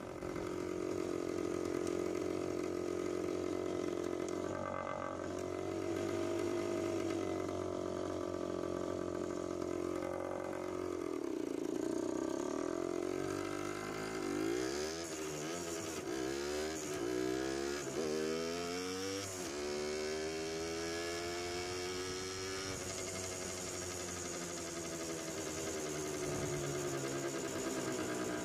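1972 Hodaka Wombat's 125 cc two-stroke single-cylinder engine running under way, its pitch rising and falling with the throttle. About halfway through it revs up and drops back several times in quick succession as it accelerates through the gears.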